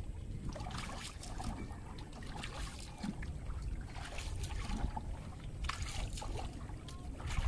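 Paddle strokes through river water from a small boat: the blade dips and pulls with small splashes and trickles, several short knocks and splashes scattered through, over a steady low rumble.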